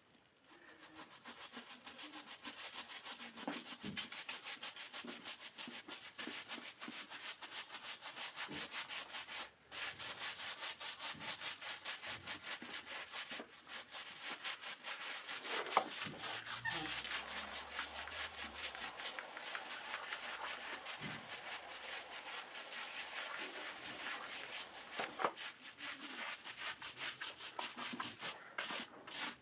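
Stiff-bristled push broom scrubbing a soapy, wet rug in rapid back-and-forth strokes, the bristles rasping over the pile. It starts about half a second in and pauses briefly about a third of the way through.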